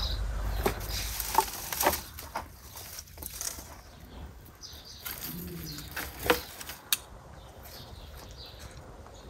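Bundles of dry twigs rustling and crackling as they are gathered and handled, with a few sharp snaps of twigs breaking.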